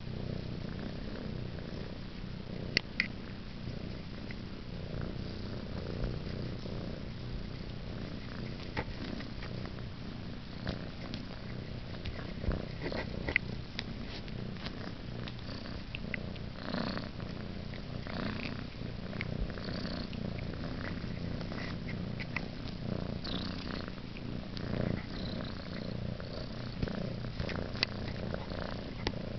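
An orange tabby kitten of about eleven weeks purring steadily, close to the microphone, with scattered small clicks and rustles.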